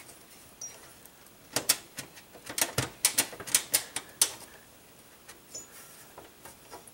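Light metallic clicks and clacks of a video card's bracket and the slot covers rattling against a steel PC case as the card is worked loose: a quick cluster of sharp clicks over about three seconds, then a few fainter ones.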